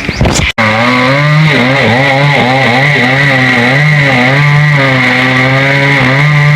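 Two-stroke chainsaw cutting tamarind wood. Its engine pitch sags and recovers again and again as the chain bites under load, after a sudden brief break about half a second in.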